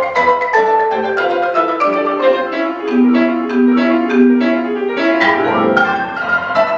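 Concert marimba played with mallets in a quick, continuous run of struck notes, each note ringing briefly.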